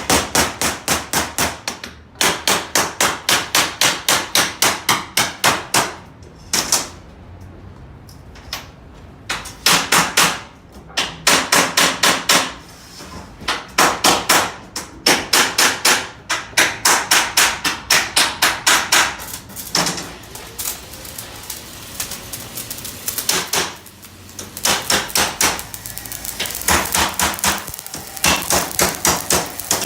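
Hammer striking steel plate in quick runs, about four or five blows a second, with short pauses between the runs.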